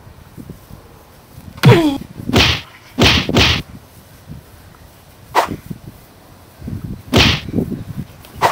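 Dubbed comic fight sound effects: a run of sharp, loud whip-crack and swish strikes. The first comes with a falling tone, three follow in quick succession, and two more are spaced out after them.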